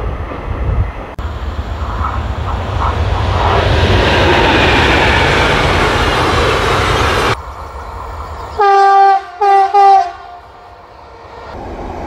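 Wind buffeting the microphone, then a train passing with a rushing noise that swells and cuts off. A train horn then sounds three times, one longer blast and two short ones, the loudest sound here.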